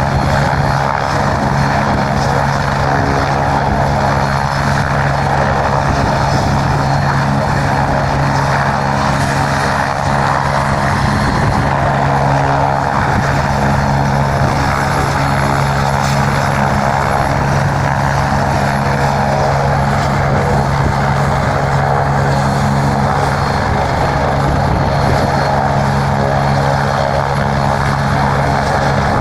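Medical helicopter's engine and rotor running steadily and loudly, with a strong low hum and no change in pitch or level.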